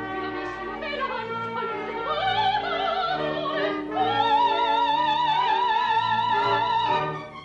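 Operatic singing with orchestra from a zarzuela duet. The voice rises through a phrase, then holds a long high note with wide vibrato for about three seconds, which stops just before the end.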